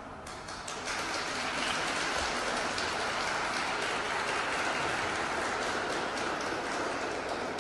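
Audience applauding in an ice rink, building up about a second in as the skating music stops.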